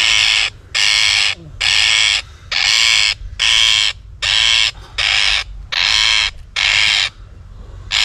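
Rose-ringed parakeet screeching in distress, about ten harsh squawks of roughly half a second each, one after another, while it is held tangled in a trapper's net.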